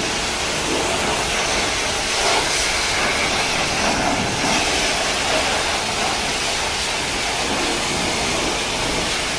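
Self-service car wash pressure wand blasting a jet of water onto a car's bodywork: a loud, steady hiss of high-pressure spray.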